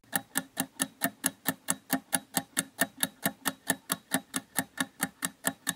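Ticking-clock sound effect: quick, even ticks about five or six a second, marking thinking time while a question waits for its answer.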